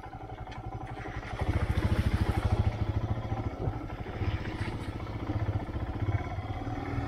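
Motorcycle engine running while the bike is ridden, a fast even pulsing that gets louder about a second and a half in.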